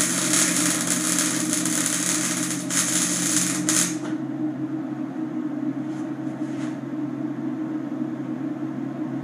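Electric arc welding on steel tubing: a steady hiss from the arc that stops abruptly about four seconds in, over a steady low hum from the welding machine that carries on after the arc is shut off.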